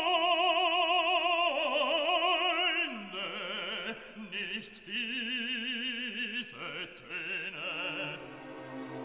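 Background opera music: a voice sings long held notes with wide vibrato, changing pitch every second or so, over a classical accompaniment.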